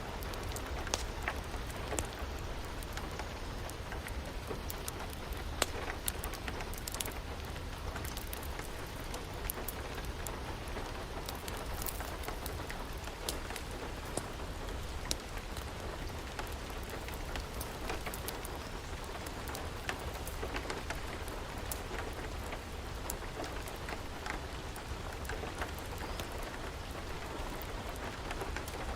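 Steady rain mixed with a wood fire crackling, with sharp irregular pops scattered throughout.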